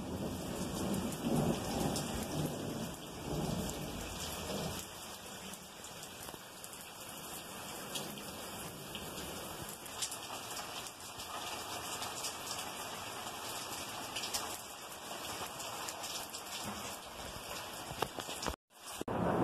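Heavy rain falling steadily in a thunderstorm, with a low rumble of thunder dying away over the first few seconds. The sound cuts out for a moment near the end.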